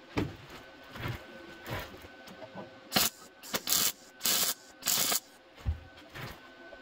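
MIG welder tack-welding a steel car body panel: about five brief bursts of arc noise in quick succession from about three seconds in. Before them come a few light handling clicks and knocks.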